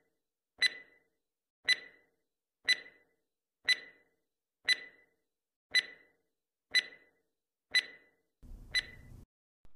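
Countdown timer sound effect: a short, sharp tick-beep once a second, about eight in a row, followed near the end by a fainter, lower sound.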